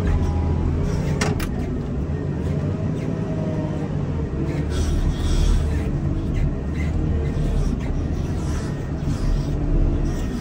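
Komatsu wheel loader's diesel engine running steadily while pushing snow, with a sharp knock about a second in.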